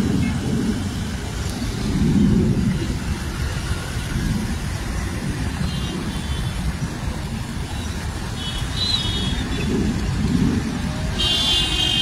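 Steady low rumble of road traffic passing on a bridge, with wind on the microphone, swelling and easing every few seconds. Short high-pitched tones break in about six and nine seconds in, and again near the end.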